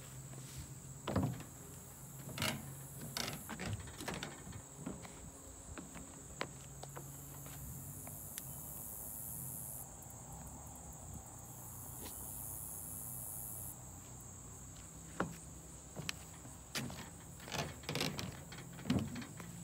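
Footsteps in grass, a few in the first seconds and a run of them near the end, over a steady high chirring of insects that briefly grows into a louder buzz in the middle.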